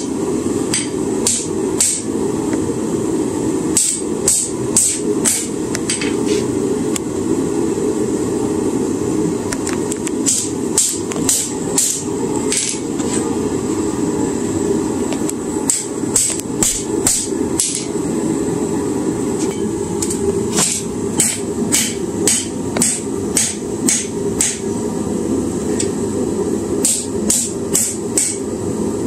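Hand hammer striking a red-hot railroad spike on a steel anvil while forging a knife blade, in runs of several blows about two a second with short pauses between. A steady rushing noise runs underneath.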